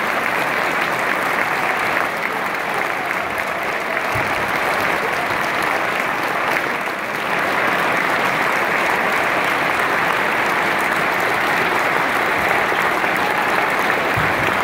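Large audience applauding steadily after a concert band performance.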